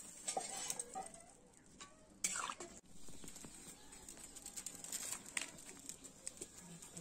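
Metal cooking utensils clinking and scraping around a kadai of fish curry: a spatula and a steel mug knocking against metal pots, with one louder clatter a little over two seconds in.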